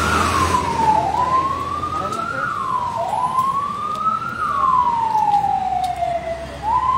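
Fire truck siren wailing: the tone jumps up, climbs slowly, then glides back down, over and over, every two seconds or so, with one longer, slower fall in the middle. A low engine rumble fades out early on.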